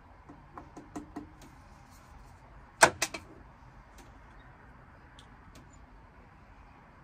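A beer can and a stemmed glass set down on a wooden table: a few light taps in the first second or so, then a sharp knock nearly three seconds in with a smaller one just after.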